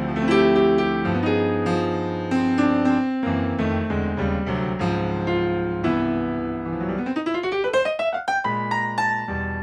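Jazz piano playing full chords over low notes, with a fast run rising up the keyboard about seven seconds in.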